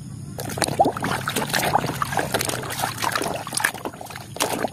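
Muddy water splashing and sloshing in a tub as a hand swishes and scrubs a mud-caked plastic toy helicopter in it. The sound is an irregular run of splashes and drips that starts about half a second in.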